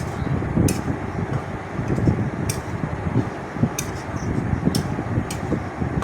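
Steady low rush of noise with a short sharp tap about every second: a spatula knocking against the kadai as masala is stirred and fried.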